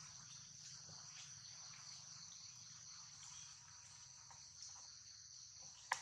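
Steady high-pitched chirring of insects in the surrounding woodland, faint, with a single sharp click near the end.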